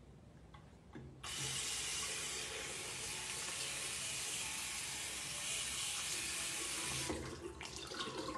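Bathroom tap running water into a sink. It comes on suddenly about a second in, runs steadily, and is shut off around seven seconds, followed by a few small splashes.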